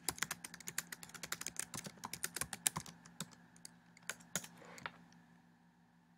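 Typing on a computer keyboard: a quick run of keystrokes that thins out to a few last presses and stops about five seconds in.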